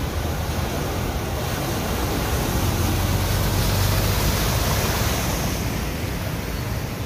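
Small Suzuki hatchback wading through deep floodwater, water splashing and rushing around its wheels in a steady wash, with a low engine hum strongest around the middle.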